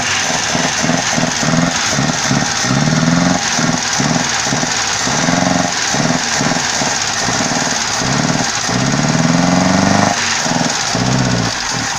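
1992 Fiat Uno Mille's carburetted engine running unevenly with a regular pulsing of about two to three beats a second, revved up several times. The owner puts the stumbling down to an over-rich carburettor mixture that he is still adjusting.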